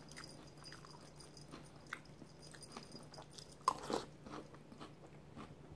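A person chewing a mouthful of Boo Berry cereal in milk, faint wet crunching. About three and a half to four seconds in, a couple of sharp clicks come as the spoon goes to the mouth for another bite.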